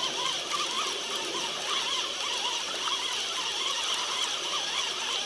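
Chorus of frogs calling, many short overlapping croaks, over a steady hiss.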